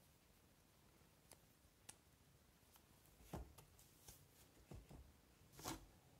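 Faint handling noises from a rubber watch strap being fastened on the wrist and the arm moving: a couple of soft clicks, then a few low rustles and bumps, the loudest near the end.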